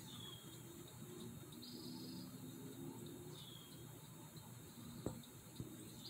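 Faint outdoor ambience with a small bird calling over and over, a short falling note alternating with a buzzy trill every couple of seconds, over a steady thin insect drone. A single soft knock about five seconds in.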